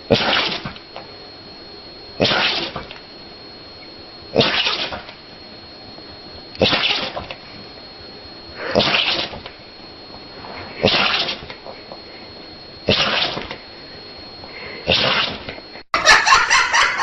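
An animal sneezing again and again, one short sneeze about every two seconds, eight in all, with a faint steady high tone in the background between them. Near the end this cuts off to a louder, denser noise.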